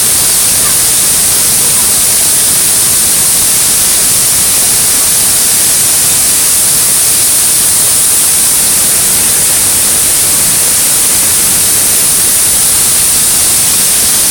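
Waterfall rushing, a loud steady wash of noise with a strong high hiss and no breaks.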